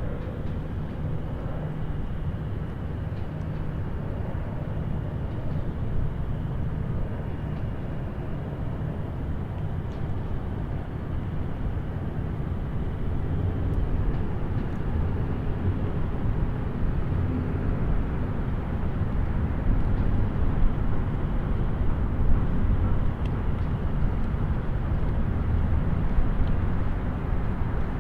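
Distant highway traffic: a steady low rumble of passing vehicles, swelling a little in the second half.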